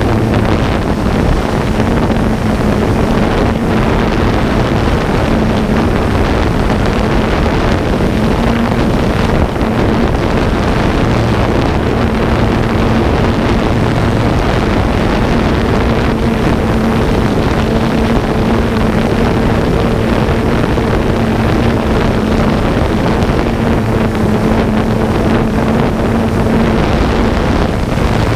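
Camera drone's propellers and motors running steadily in flight, a constant buzzing hum heard close up from the drone's own camera, with wind noise on the microphone.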